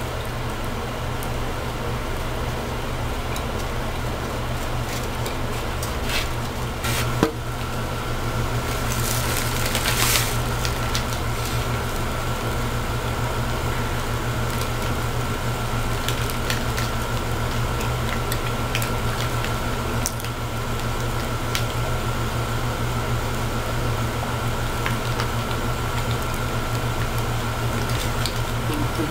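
Quiet eating sounds as a plastic fork cuts and lifts cake from a styrofoam clamshell box, with a few sharp clicks and a brief rustle about nine to ten seconds in, over a steady low hum.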